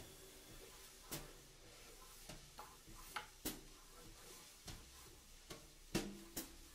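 Graphite crayon striking and scraping the drawing paper in quick strokes: a string of irregular sharp taps, the loudest about six seconds in.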